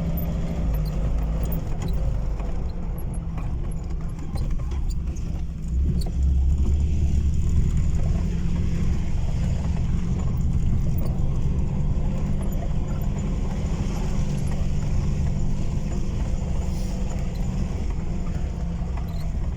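Vehicle engine running steadily with a low rumble, the sound of driving slowly over a muddy off-road track.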